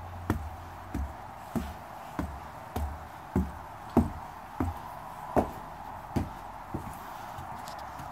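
Footsteps of the person filming, walking steadily along a snowy wooden porch at a bit under two steps a second, stopping about seven seconds in. Behind them runs a steady hum of traffic.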